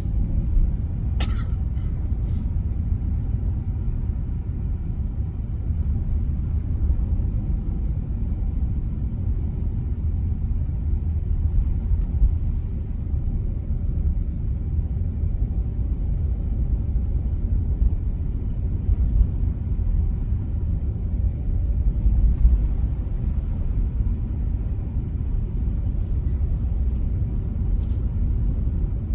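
Steady low rumble of a taxi driving: engine and road noise heard from inside the cabin. A single sharp click comes about a second in.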